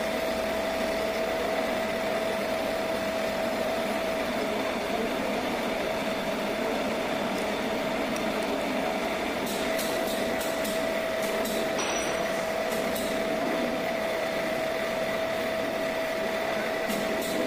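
Pillar drilling machine running steadily, its twist drill cutting into a round metal workpiece, with a steady motor hum and a few light ticks in the second half.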